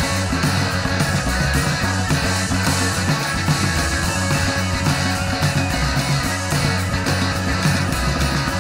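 Heavy psychedelic rock band playing loud and steady, with guitar over a regular drum beat.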